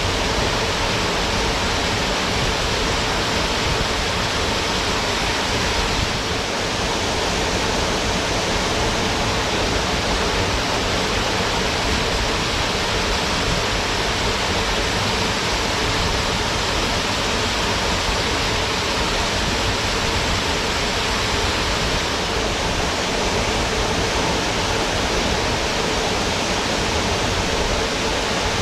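Waterfall: water falling and rushing steadily, an even, unbroken roar of noise with no pauses or changes.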